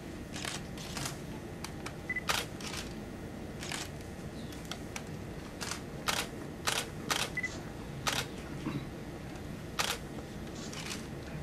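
Camera shutters clicking a dozen or so times at irregular intervals as photographers take pictures, with a couple of short electronic beeps, over a low room hum.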